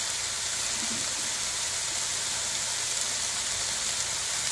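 Chopped chicken frying in oil in a pan: a steady sizzle.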